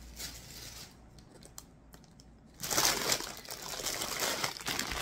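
Clear plastic wrapping on a cross-stitch kit crinkling as it is handled. There is a quieter spell, then it gets loud a little under three seconds in.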